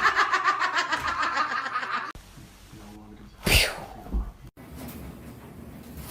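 Rapid bursts of laughter for about two seconds, then a single short sneeze about three and a half seconds in.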